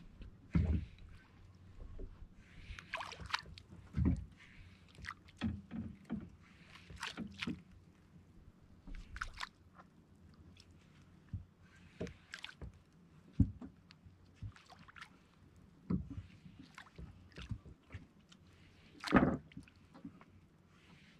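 Irregular knocks and thumps on a small fishing boat, with short splashes of water against the hull; the loudest thump comes near the end.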